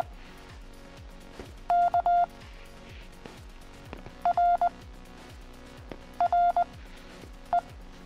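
Morse code practice tones from the Morse Machine Android app: single letters sent as short groups of dits and dahs in one steady mid-pitched beep tone, four letters with pauses of about two seconds between them, the last a single short dit.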